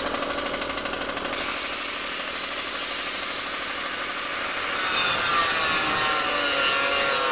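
Air compressor running with a steady hum while a gravity-feed paint spray gun hisses, spraying paint; the hiss grows louder about five seconds in.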